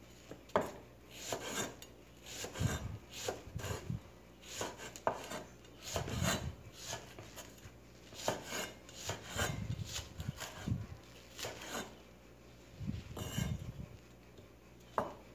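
Cleaver slicing thick leek stalks on a wooden chopping board: short, irregular knocks of the blade through the stalk onto the board, about one or two a second, with a few brief pauses.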